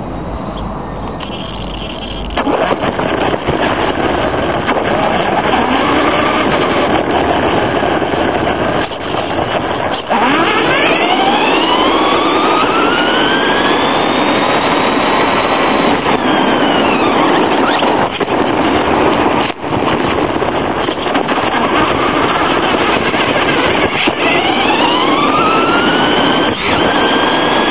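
Traxxas Stampede VXL brushless RC truck driving on asphalt, heard from a camera mounted on the truck: a steady rush of motor, gear and tyre noise, with a whine that rises in pitch as the truck speeds up, twice, about ten seconds in and again near the end.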